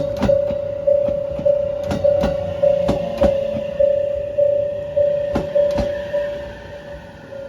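Japanese level-crossing alarm ringing, one electronic tone struck about every 0.6 s, with sharp irregular clacks of train wheels over rail joints. The alarm grows fainter after about six seconds.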